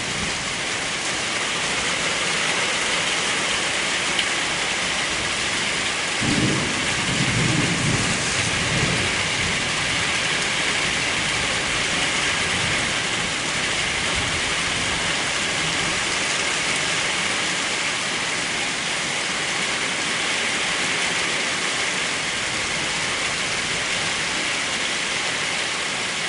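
Steady rainfall, with a low rumble of thunder starting about six seconds in and lasting about three seconds.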